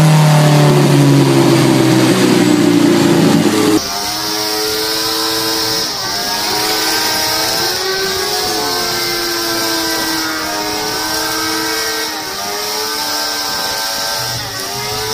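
A turbocharged race-car engine running at high revs, its pitch sinking slightly, gives way abruptly about four seconds in to a motorcycle engine held high during a burnout. The bike's revs step up and drop back again and again over a steady high hiss.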